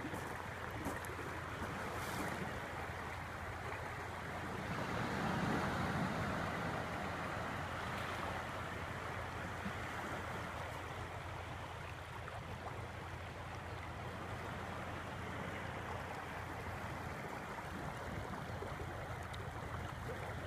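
Shallow river water rippling over pebbles where it runs into the sea, with ocean surf washing behind it: a steady rushing that swells a little about five seconds in.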